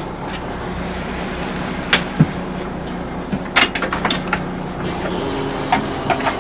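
Lobster boat's engine running steadily, with scattered sharp knocks and clicks, most of them in a cluster past the middle, as the gaff and buoy line are handled at the trap hauler.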